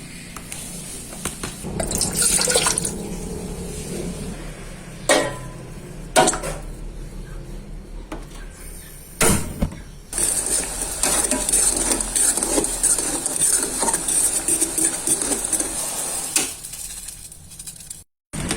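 Kitchen preparation sounds: a few knocks of utensils or dishes, then liquid poured steadily into a container for about six seconds.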